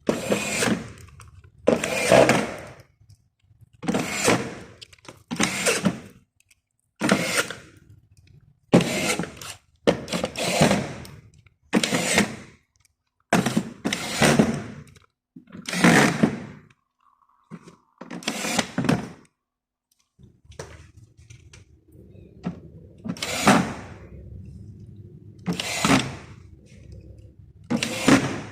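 A tool working in about a dozen short noisy bursts with brief pauses between them, then a low steady hum over the last few seconds with a couple more bursts.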